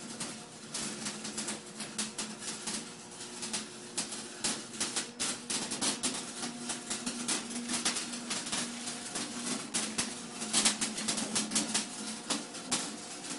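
Electric arc welding: a dense, irregular crackling and sputtering over a steady low hum.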